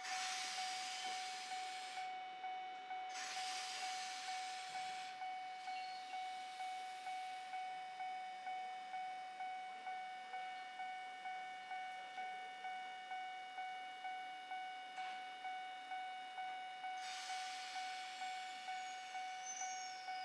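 Railway level-crossing warning bell ringing steadily, about two strikes a second. Three bursts of hissing air from the stopped train, near the start, a few seconds in and near the end.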